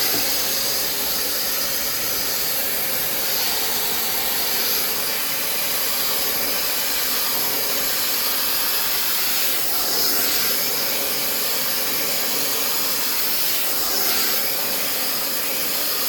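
Brushless high-speed hair dryer with a concentrator nozzle blowing steadily, a loud rushing hiss of air with a high whine, swelling slightly a couple of times as it is moved through the hair.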